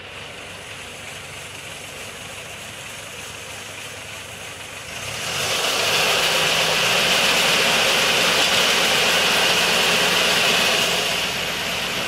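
Tractor engine idling, then throttled up about five seconds in to a louder steady run with a strong hiss over it, as the grain auger is brought up to working speed.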